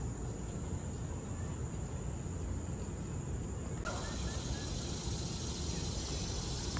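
Outdoor park ambience: a low steady rumble under a thin, steady high insect tone. A few faint short chirps come about four seconds in.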